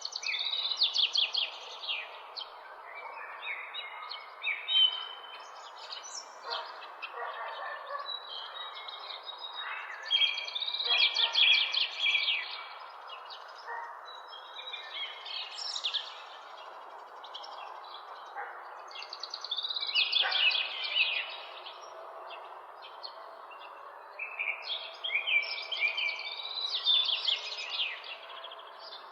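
Songbirds singing in short repeated phrases every few seconds over a steady background hum of city noise.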